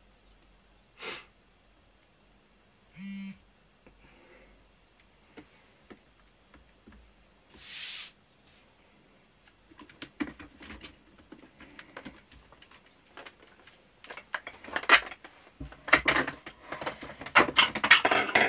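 Clicks and knocks of handling from about ten seconds in, building into loud crinkling of a clear plastic bag holding scraps of 3D-printing waste as it is picked up, loudest near the end.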